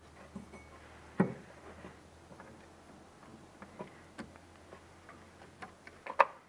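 Plastic electrical connectors being worked loose and unplugged from a car's ignition coil: a string of sharp plastic clicks and small rattles, the loudest about a second in and another near the end.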